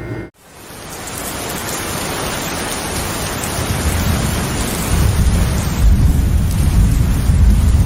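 Rain falling steadily, fading in just after the start, with a low rumble of thunder growing louder from about halfway through.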